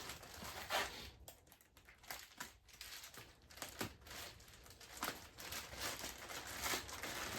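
Irregular small clicks and crinkling, rustling handling noises of hands working on engine parts during assembly.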